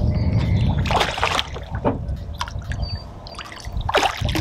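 A hooked carp splashing at the surface beside the landing net as it is played in, in several short splashes over a steady low rumble.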